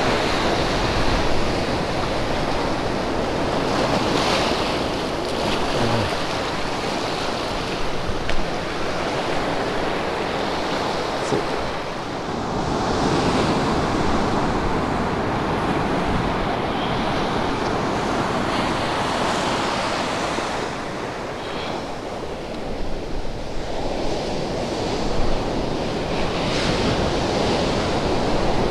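Sea surf breaking and foaming over rocks and washing up a sand beach: a continuous rushing wash that swells and eases. Wind rumbles on the microphone.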